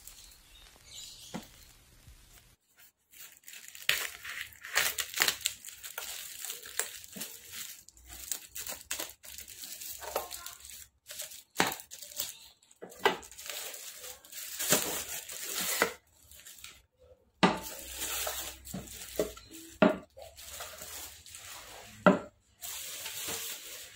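Plastic packaging crinkling and tearing as a parcel in a plastic mailer bag is opened and white plastic bottles are unwrapped. A few sharp knocks come as bottles are set down on the table, the loudest near the end.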